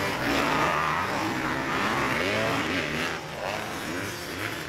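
Motocross dirt bike engines revving on the track, their pitch rising and falling as the riders open and close the throttle. The sound gets a little quieter after about three seconds.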